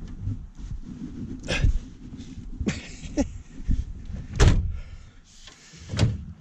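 About five separate knocks and thumps with scuffling and rustling between them: someone moving around and handling gear inside a pickup truck's camping setup.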